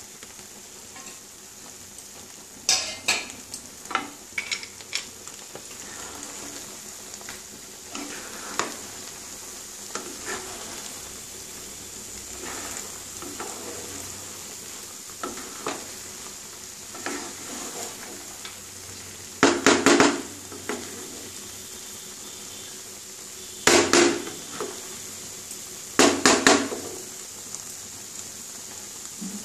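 A wooden spatula scraping and knocking against a coated frying pan as cooked rice is stirred and turned over, over a faint steady sizzle. The strokes are scattered at first, and the loudest come in three short bursts in the last third.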